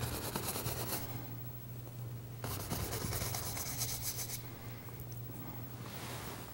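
Paintbrush scrubbing quick, scratchy strokes of paint onto a stretched canvas: a spell of strokes, a pause of about a second and a half, then a longer spell, with fainter strokes near the end. A steady low hum runs underneath.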